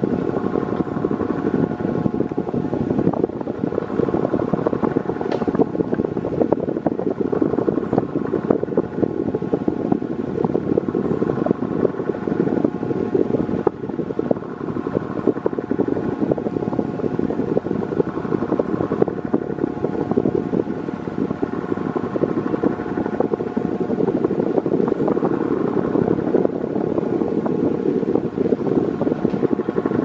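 Ventisol New 50 cm wall fan running steadily on its lowest speed with a borrowed Ventisol Turbo 6 turbo-style blade: an even rush of moving air with a steady hum of several tones over it.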